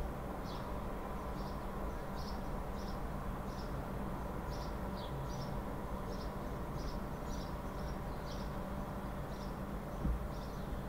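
Steady background hum and hiss with faint, short, high-pitched chirps recurring irregularly about once or twice a second, and a brief low thump near the end.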